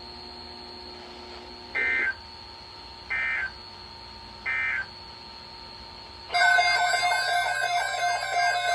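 Weather radio end-of-message signal: three short, identical electronic data bursts about 1.3 seconds apart over faint receiver hiss. About six seconds in, a louder continuous electronic warbling tone starts.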